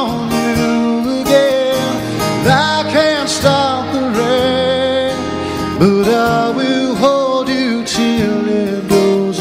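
Live band music: a man singing a slow song over strummed acoustic guitar with band backing.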